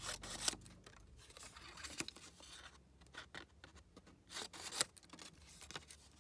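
Scissors cutting a folded strip of paper into quarters: a few separate short snips of the blades through the paper, with paper rustling between them as the cut pieces are handled.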